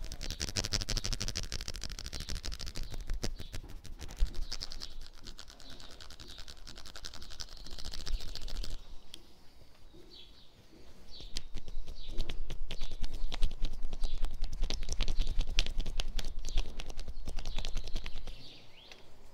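Rapid, dense tapping and patting of hands on a person's body during a massage. The strokes ease off briefly about halfway through, then pick up again, with birds chirping in the background.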